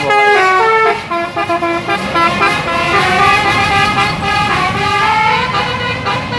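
A bus's musical 'telolet' air horn playing a tune of quick stepped notes, with a short wavering glide at the start.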